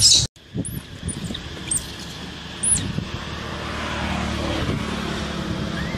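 Outdoor background with a steady low rumble and a few short, high-pitched calls scattered through. After a brief cut-out near the start there is no clear single sound.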